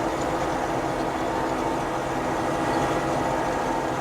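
Combine harvester running steadily while cutting wheat, heard from inside the cab: a constant engine and threshing-machinery drone with several steady tones.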